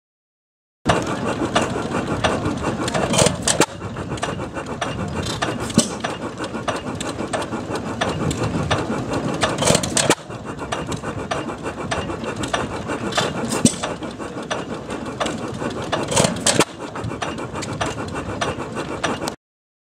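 Antique engines running close by, a dense mechanical clatter with occasional sharper knocks, including a Simplicity stationary gas engine with twin flywheels. The sound starts about a second in and changes abruptly three times where separate shots are cut together.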